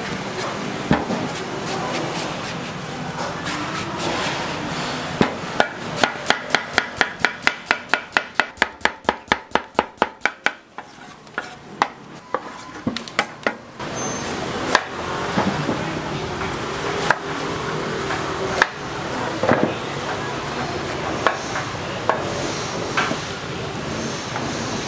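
Knife chopping food on a cutting board: a quick, even run of strokes about four a second through the middle, with scattered single chops before and after.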